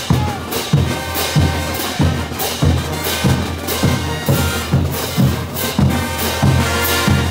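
Bolivian brass band playing full out: sousaphones, trumpets and trombones over bass drums, snare drums and clashed hand cymbals that mark a steady beat.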